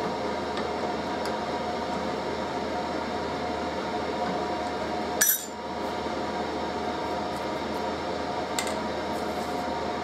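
Workshop heater running steadily, a constant whirring hum with a few fixed tones. About five seconds in comes a single short metallic clink.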